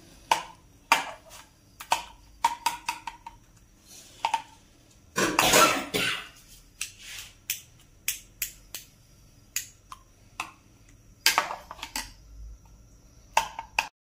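A metal utensil clinking and scraping against a ceramic plate while stirring yogurt raita: a run of sharp clicks, some ringing briefly, with a louder scrape lasting about a second around the middle.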